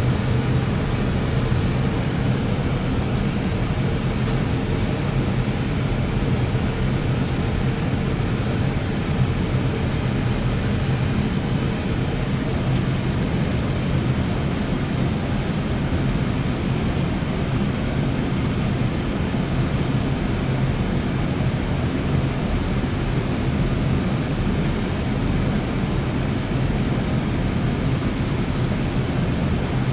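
Steady flight-deck noise of an Airbus A320 on a stabilized final approach: an even rush of air with a low steady hum beneath it.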